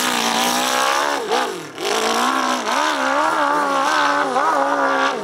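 Big-bore (700cc-plus) hillclimb dirt bike engine revving loudly, its pitch rising and falling repeatedly as the throttle is worked, with a sharp drop and recovery about a second and a half in.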